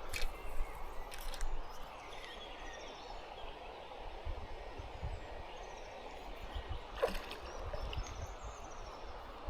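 Steady rush of a flowing creek, with a few faint bird calls and a few light knocks.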